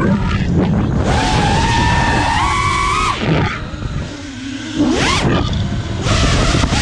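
Brushless motors of a 6S FPV quadcopter whining and changing pitch with the throttle, over wind rumble on the onboard camera mic. The whine falls away about three seconds in as the throttle drops during a roll, then climbs sharply about five seconds in as the throttle is punched to recover.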